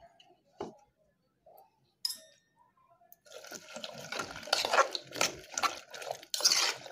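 A hand mixing chopped vegetables in tamarind water inside an aluminium pressure cooker: wet sloshing with pieces knocking together and against the pot, starting about three seconds in after a few light clicks.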